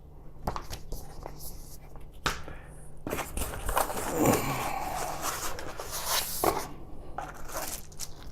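Cardboard and paper packaging being handled: a few light knocks, then a few seconds of scraping and rustling.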